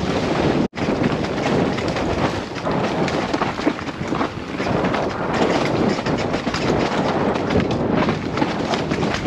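Wind rushing over the camera microphone while an enduro mountain bike descends fast, its tyres rolling over dirt and dry leaves and the bike rattling over bumps. The sound cuts out for an instant under a second in.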